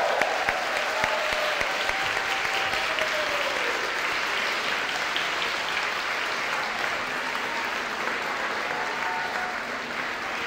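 A roomful of wedding guests applauding steadily.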